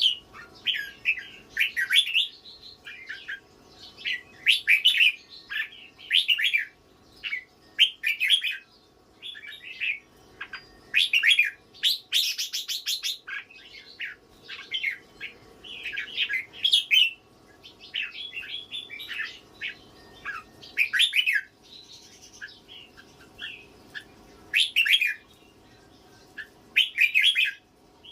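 A young pet bird calling, with repeated bursts of short, loud chirps every second or two.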